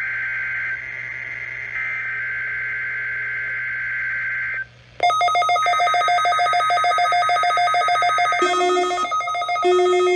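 NOAA Weather Radio SAME header data bursts: raspy two-tone digital chirping, broken by a short gap about a second in, marking the start of the weekly test. About five seconds in, the weather radios' own alert alarms start, a loud, rapidly pulsing electronic tone with more tones layered on near the end, while a third header burst plays underneath.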